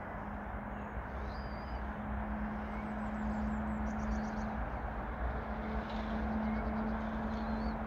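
Steady outdoor rumble with a faint steady hum, growing slightly louder, and small birds chirping and trilling a few times over it.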